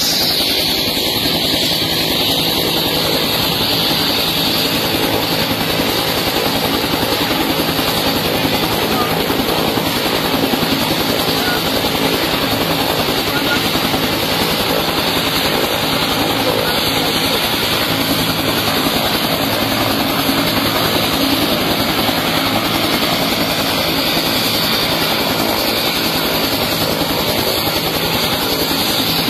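Helicopter running close by with a steady rotor and engine noise that does not let up, with crowd voices underneath.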